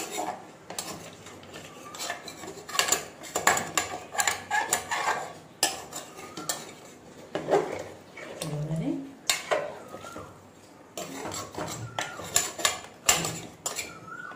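Metal ladle stirring mutton curry in a metal pressure cooker, knocking and scraping against the pot's sides and bottom in irregular clinks throughout.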